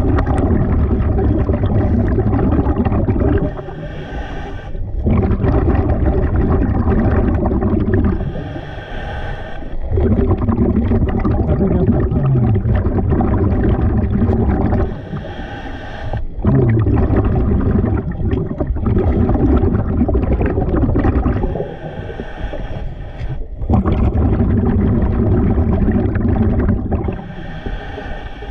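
A scuba diver breathing underwater through a regulator. Long, loud, low bubbling of exhaled air alternates with shorter hissing inhalations, about one breath every five to six seconds.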